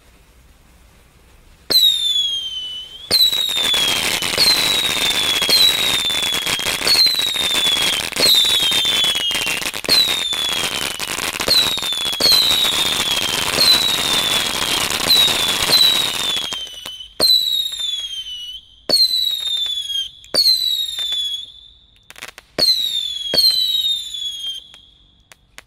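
A 200 g firework fountain lets out a run of whistles, each falling in pitch and lasting about a second, over a dense crackling hiss. Partway through, the hiss drops away and the whistles come singly with short gaps, the last one fading out near the end.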